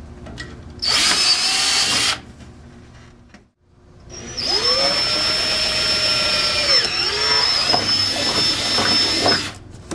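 Cordless drill with a 3/8 inch bit boring holes: a short run of about a second, a pause, then a longer run of about five seconds with a high motor whine that dips in pitch for a moment as the bit loads.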